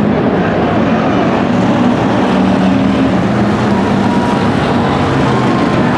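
Dirt-track stock cars running laps together, several engines going loud and steady as they pass.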